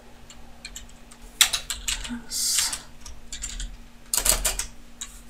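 Typing on a computer keyboard in two quick runs of key clicks, with a short hiss between them.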